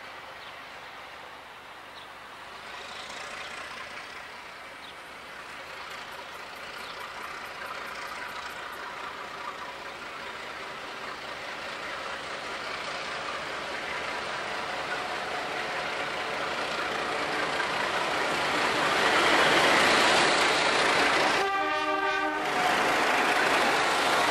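A 48 class Alco diesel locomotive's engine running as it approaches hauling a freight train, growing steadily louder until it passes close by. Near the end there is a short horn blast of about a second.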